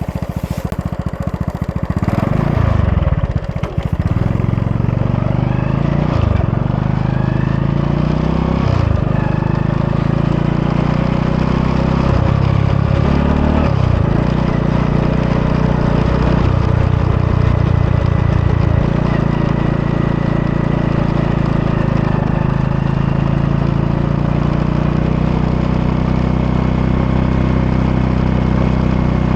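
An engine running continuously, its pitch rising and falling several times in the first half as it speeds up and slows down, then holding fairly steady.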